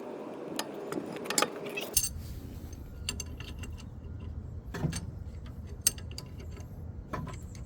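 Scattered metallic clinks and taps as a C-clamp and an old brake pad are set against a brake caliper, ready to press the piston back.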